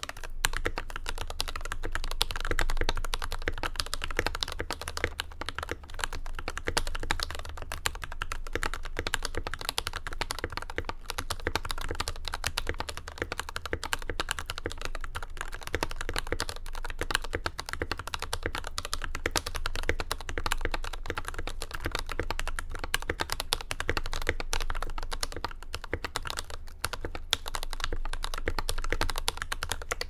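Typing test on a Keychron K10 Pro mechanical keyboard fitted with Gateron switches: a fast, continuous run of keystrokes, including the spacebar on its re-lubed, Holee-modded stabilizer.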